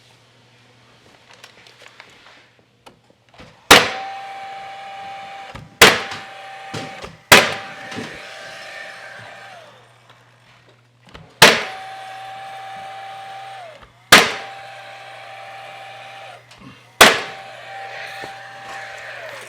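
Battery-powered nail gun firing six sharp shots a few seconds apart, fastening PVC window trim. After each shot its motor keeps whirring steadily for about two seconds, then winds down.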